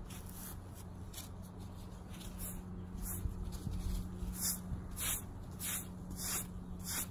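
Damp grout sponge being wiped across a freshly grouted flagstone countertop, cleaning grout off the stone. It makes a soft scrubbing swish with each stroke, about one every half second from a couple of seconds in.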